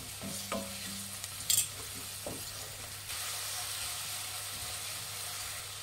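Chopped onions with ginger-garlic paste and green chilli paste frying in oil in a kadai, a steady sizzle that grows a little louder about three seconds in. A spatula being stirred through them gives a few short scrapes and taps in the first half.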